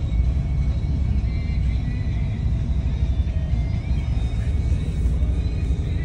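Daewoo FX116 bus's engine and road noise while under way, a steady low rumble heard from inside the passenger cabin.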